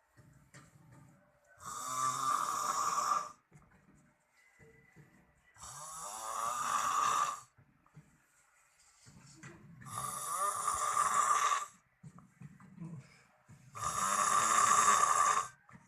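Loud snoring from a sleeper: four long snores, each about a second and a half, coming roughly every four seconds, with quieter breathing between them.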